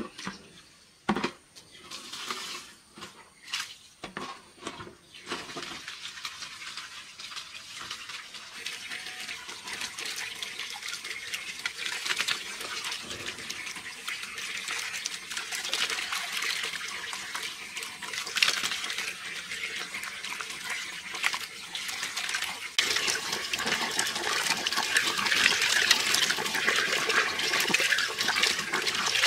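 Running water: a steady rushing hiss that builds and grows louder about two thirds of the way through, after a few knocks near the start.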